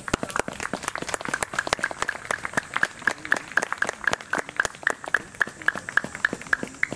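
A small group applauding with hand claps. One steady clapper stands out loudest at about five claps a second, over fainter, looser clapping from others.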